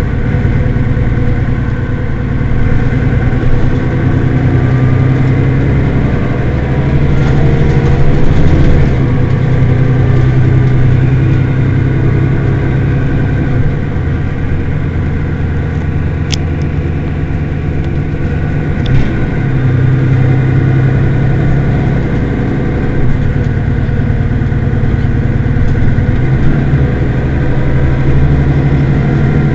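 Mercedes-Benz Citaro city bus engine idling steadily while the bus stands, its low hum swelling slightly now and then. A sharp click a little past halfway, and a fainter one about three seconds later.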